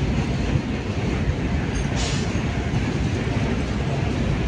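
Goods train of open-top freight wagons rolling along the track, a steady low rumble of wheels on rails. A brief sharper, higher sound cuts in about two seconds in.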